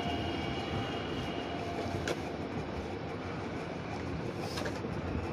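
Steady rumbling background noise, with two light clicks as a small cardboard phone box is handled, about two seconds in and again near the end.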